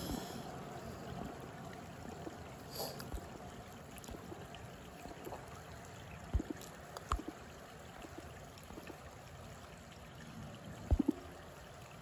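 Steady trickle and flow of river water. It is broken by a few short, dull knocks about halfway through and a quick pair near the end, which are louder than the water.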